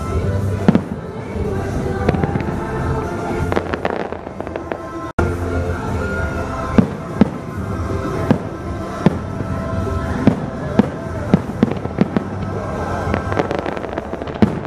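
Fireworks display bursting in a string of sharp bangs over loud show music, the bangs coming thick and fast in the second half.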